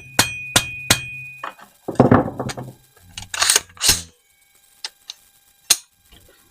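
Metal clicks and clacks of AR-15 rifle parts being handled and fitted together, with a short metallic ring near the start and two louder sharp clacks about three and a half seconds in.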